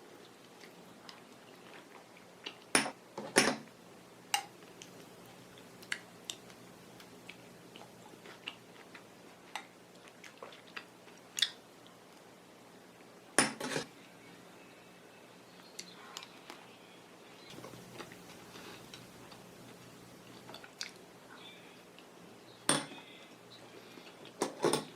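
Scattered clinks and clatters of dishes and utensils being handled, with a few louder knocks about three seconds in, in the middle and near the end.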